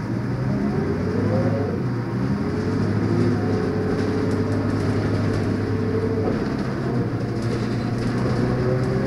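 Leyland Lynx single-deck bus's diesel engine pulling away under load, its note rising over the first second or so, then running steadily, and climbing again near the end.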